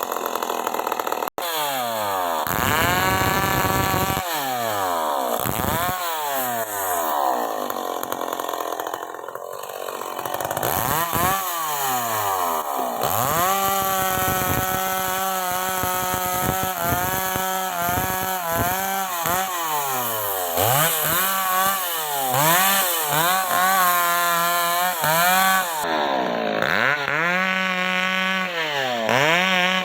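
Stihl MS 381 two-stroke chainsaw cutting wood. The engine revs up and drops back again and again, and is held at high revs through longer stretches of the cut.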